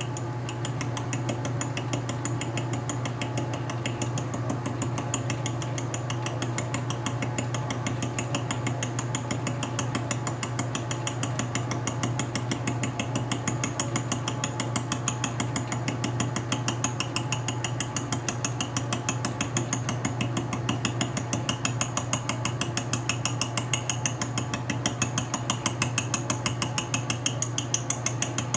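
Atlas metal lathe running slowly with a steady motor hum while an arbor-mounted gear cutter takes a light cut into a bevel gear blank: a fast, even ticking as each cutter tooth strikes the metal, several ticks a second, growing louder toward the end.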